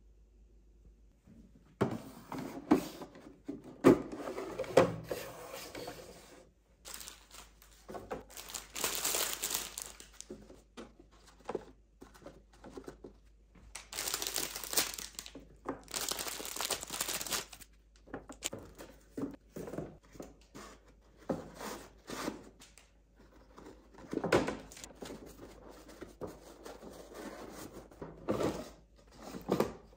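Plastic packaging on kitchen sponges crinkling and tearing as the packs are unwrapped, starting about two seconds in. It comes in irregular spells mixed with knocks and taps of sponges and items set into a clear plastic organizer bin.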